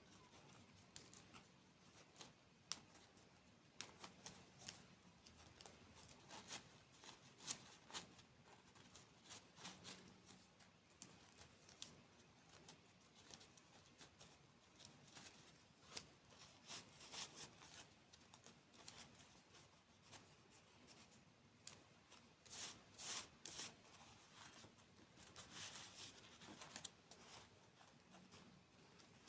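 Close-miked ASMR eating sounds: irregular crisp crunches and crackles as someone bites and chews desserts and candy, with louder, busier clusters in the second half.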